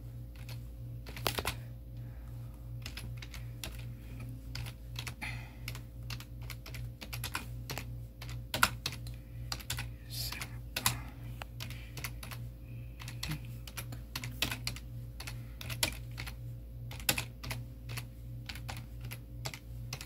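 Typing on a computer keyboard: irregular keystroke clicks, some sharper than others, over a steady low hum.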